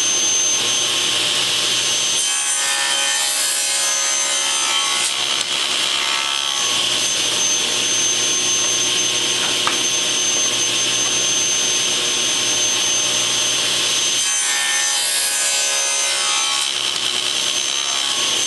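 Table saw running steadily with a thin high whine, its blade cutting mitered wood frame pieces to length; the sound changes during two cuts, one a couple of seconds in and one about fifteen seconds in.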